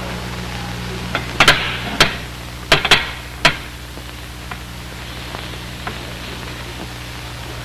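A quick series of sharp knocks and clacks, about six within two seconds, followed by a few faint ticks, over a steady low hum and hiss.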